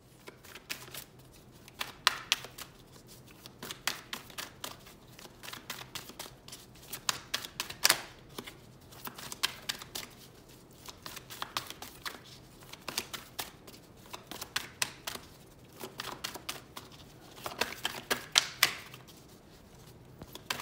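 A deck of cards being shuffled by hand: quick clicks and flutters of cards in irregular bursts with short pauses, loudest about two, eight and eighteen seconds in.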